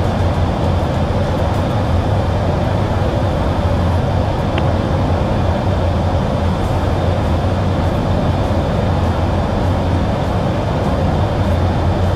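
Steady, loud drone of jet aircraft engine and airflow noise heard from inside the aircraft, with a strong low hum that does not change.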